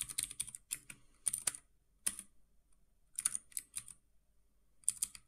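Keystrokes on a computer keyboard, typed in short runs of clicks with pauses between.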